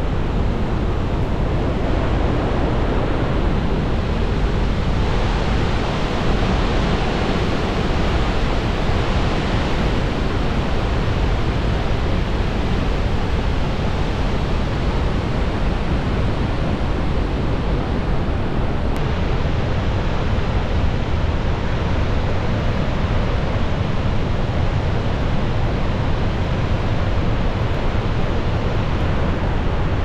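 Steady, dense rushing noise of Iguazu Falls, the falling water pouring into the mist-filled gorge, continuous and unbroken.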